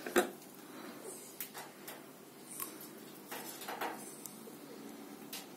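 Faint handling noises: a sharp click just after the start, then a few small scattered clicks and short rustles.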